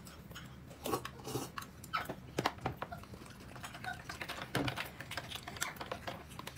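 Eating sounds: irregular light clicks and taps of utensils against a bowl, a few each second.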